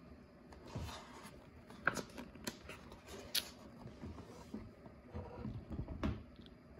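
A page of a hardcover picture book being turned by hand: faint paper rustling with a few soft taps and clicks scattered through the turn.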